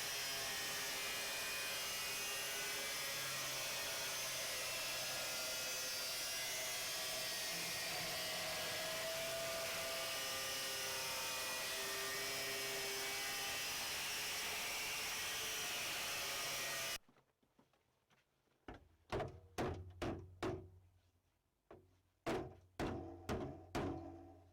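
Angle grinder running steadily with a high hiss, cutting into the thin rusted sheet steel of a car's boot floor, stopping abruptly about three-quarters of the way through. Then a string of about ten sharp knocks and clunks of metal and tools being handled.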